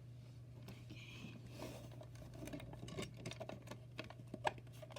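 Faint handling noises: scattered small clicks and taps, a few sharper ones around three and four and a half seconds in, over a steady low hum.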